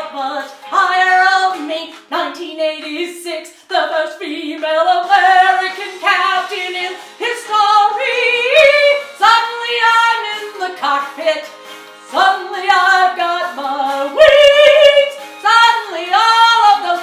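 A woman, a mezzo/alto, singing a musical-theatre song unaccompanied, in phrases of a second or two with short breaks between them.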